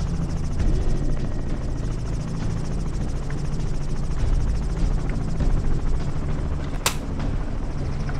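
Helicopter heard from inside its open-sided cabin: steady rotor and engine noise with fast, even rotor chop. A single sharp crack sounds about seven seconds in.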